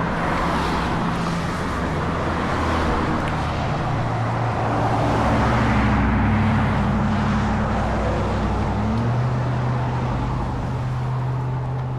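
Motor vehicle engine running close by, with road traffic noise around it. The engine pitch changes about nine seconds in.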